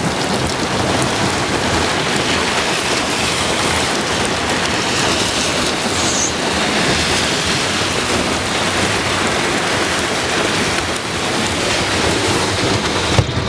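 Heavy rain on a moving car, a steady dense hiss with no letup, heard from inside the car; a single short knock near the end.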